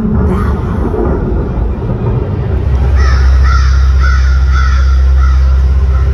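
Dramatic pregame-show sound effects over an arena sound system. About three seconds in, a loud, deep, steady rumble sets in, with wavering, high-pitched cawing calls over it for a couple of seconds.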